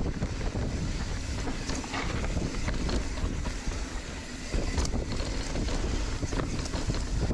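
Heavy wind buffeting on the camera microphone as it moves fast through the air, a constant low rumble with scattered small clicks and knocks.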